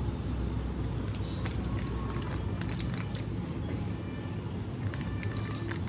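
Close-up eating sounds: a person chewing and smacking on rice and chicken chilli eaten by hand, with fingers crinkling and scraping an aluminium foil tray, heard as many short clicks over a steady low hum.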